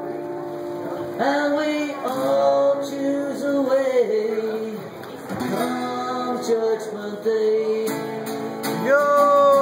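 Acoustic guitar strummed under a melody of long held notes on a harmonica in a neck rack, the notes sliding from one pitch to the next.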